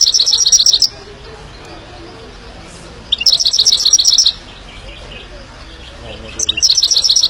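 Himalayan goldfinch singing: three bursts of rapid, high chirping notes, each about a second long and about three seconds apart.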